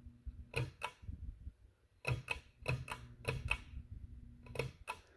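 Hugger ceiling fan coasting down just after being switched off, ticking in quick pairs of clicks with a faint hum in between. The middle pairs come at an even pace, then a longer gap before the last pair.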